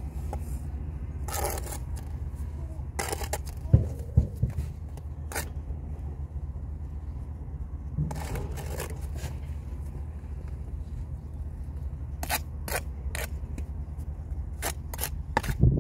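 Steel brick trowel scraping and slapping sand-and-cement mortar as it is picked up and spread on the wall, with a couple of dull knocks about four seconds in. Near the end comes a quick run of short sharp taps as a brick is bedded down, over a steady low rumble.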